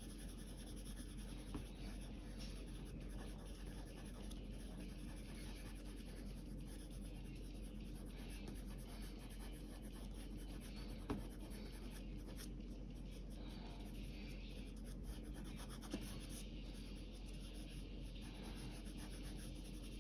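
Pencil shading on paper: a faint, steady scratching of the lead as shadows are laid in, with a couple of light ticks.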